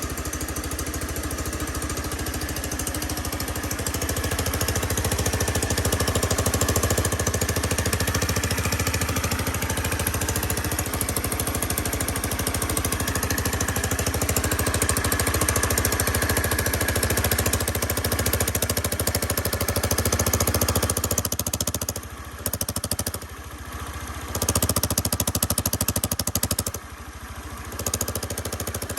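Honda Today AF61 moped's 49 cc four-stroke single-cylinder engine running with a fast, rough knocking rattle, an abnormal engine noise. Its level dips and comes back a few times near the end.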